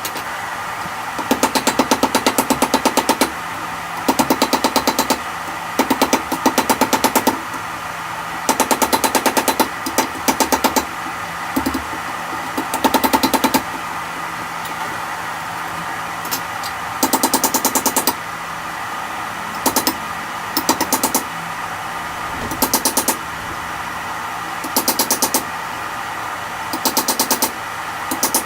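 Bursts of rapid, machine-fast hammering on metal, each lasting a second or two and repeated at irregular intervals, over steady background music.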